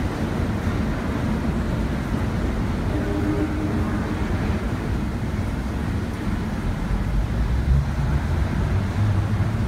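Low rumble of a subway work train running away into the tunnel on the express track, heard through the station's echoing platform. A low steady hum comes in near the end.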